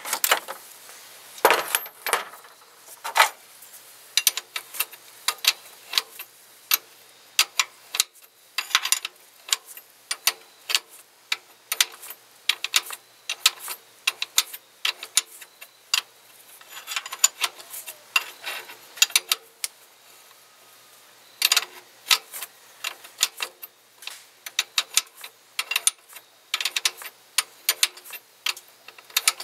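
Ratchet wrench clicking in quick runs with pauses between, as the mounting bolt of a worn serpentine belt tensioner is backed out a little at a time.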